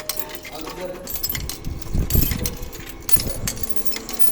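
Coins clinking and rattling in a ticket vending machine as money is fed in, with a scatter of sharp metallic clicks and a dull thump about two seconds in.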